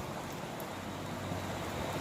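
Steady background hiss with a faint low hum, and no distinct sound event: room noise between actions.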